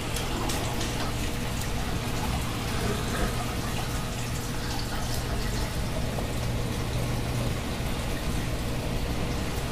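Heavy rain and gusting wind of a severe thunderstorm, a steady, even rushing hiss with a low hum underneath.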